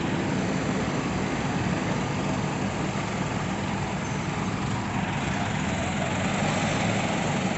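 Diesel engines of hydra mobile cranes, one an Escorts, running steadily as the cranes hold a curved steel truss aloft.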